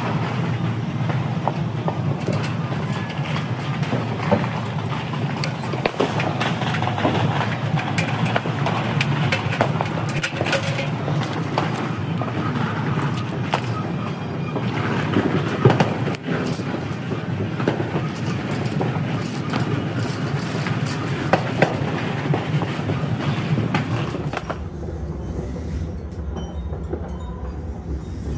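Fireworks crackling and popping continuously, many sharp bangs in quick succession over a dense rumble. About 24 seconds in it gives way to a quieter, steady low hum with a few faint ticks.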